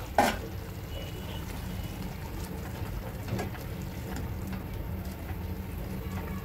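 Fried chicken pieces landing in a pan of thick green gravy with a wet plop just after the start, then a silicone spatula stirring them through the simmering gravy with soft scattered wet squelches and scrapes over a steady low hum.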